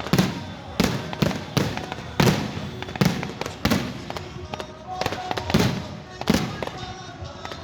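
Fireworks bursting overhead in a rapid string of sharp bangs, roughly one every half to one second, each with a short booming tail.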